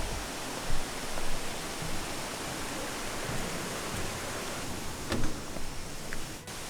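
Waterfall: a steady, even rush of falling water, with two brief knocks, one near the start and one about five seconds in.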